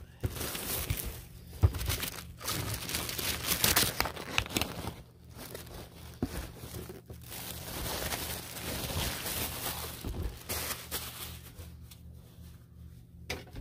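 Plastic mailer packaging crinkling and rustling as it is handled and pulled open, with scattered clicks and knocks. Loudest in the first few seconds, then quieter, fading near the end.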